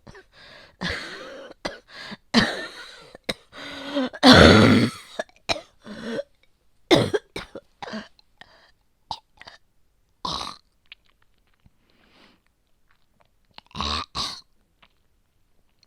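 A woman's repeated phlegmy coughing and throat clearing, a productive cough from a chest infection with heavy yellow-green phlegm. She tags it as cold, asthma and bronchitis but is unsure what infection it is. The longest, loudest fit comes about four seconds in, followed by shorter coughs that thin out, with a quick double cough near the end.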